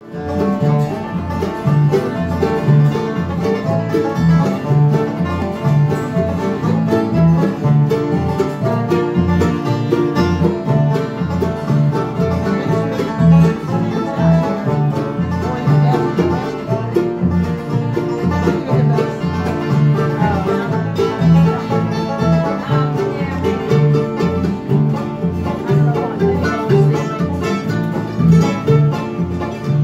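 Live acoustic bluegrass jam: strummed and picked acoustic guitars with banjo playing an instrumental tune, keeping a steady rhythm of repeated low bass notes.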